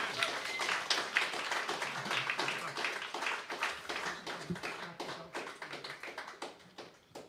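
Audience clapping at the end of a jazz tune, the claps thinning out and fading away.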